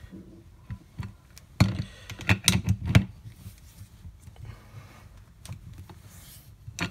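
Adjustable spanner clicking and clinking against the metal collar of a rivet tool's 90-degree angle attachment as the collar is tightened: a quick run of sharp clicks between about one and a half and three seconds in, and one more near the end.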